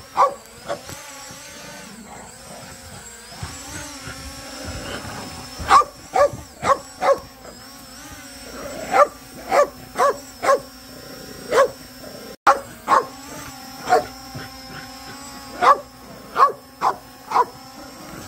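Small dog barking repeatedly in short, sharp clusters of two to five barks at a small quadcopter drone. The drone's propellers hum steadily underneath.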